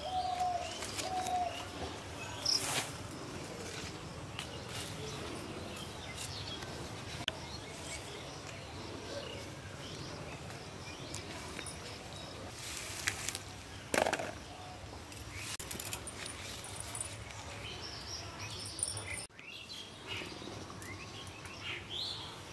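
Birds chirping over steady outdoor ambience, with a few brief rustles and knocks from a bamboo picking pole and leafy branches being handled.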